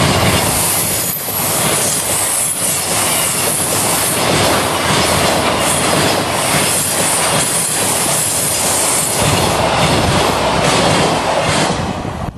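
Container wagons of a freight train running past close by: a steady rush of wheel and rail noise with repeated clacking as the wheels cross rail joints. The noise falls away near the end as the last wagon passes.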